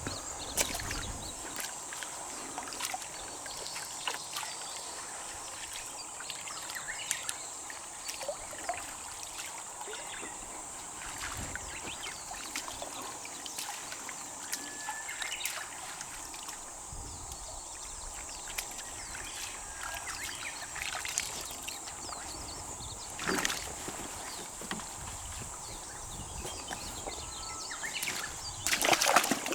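Water sloshing and splashing in a koi pond during the harvest, with many small scattered splashes and two louder ones, about two-thirds of the way in and near the end. A steady high tone runs underneath.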